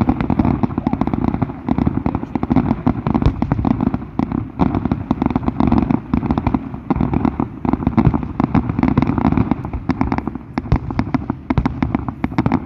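Fireworks going off in a dense, continuous barrage of booms and rapid crackling pops.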